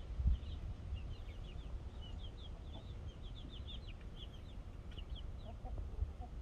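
A group of baby chicks peeping: many short, high, quickly falling cheeps overlapping in a steady chatter.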